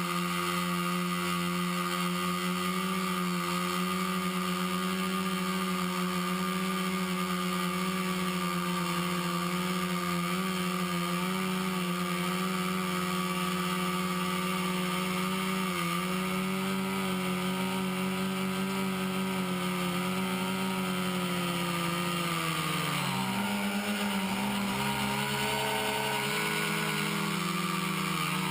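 Hoverthings HT-FPV quadcopter's four Exceed RC 2215 brushless motors turning 10-inch APC propellers, a steady multi-tone drone in flight. The tones split apart about two-thirds of the way through, then dip and climb back near the end as the throttle changes.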